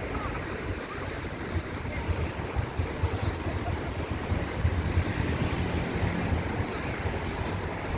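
Wind buffeting the microphone in uneven gusts over the steady wash of sea surf.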